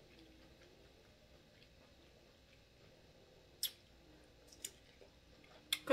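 Quiet eating sounds: soft mouth and food clicks, with one sharp click about three and a half seconds in as a smoked sausage goes to the mouth and two fainter ones near the end.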